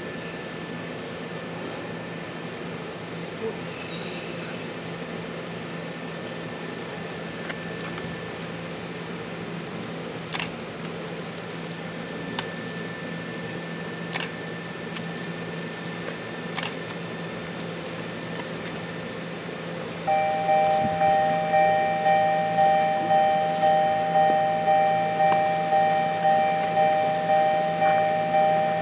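Low steady hum with a few faint clicks; about twenty seconds in, a railway level-crossing alarm starts ringing, a two-tone electronic bell pulsing about one and a half times a second as the train approaches.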